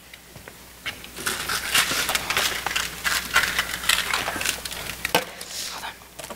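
Rustling and crinkling handling noise as things are picked up off a wooden stage floor, with a sharp click about five seconds in.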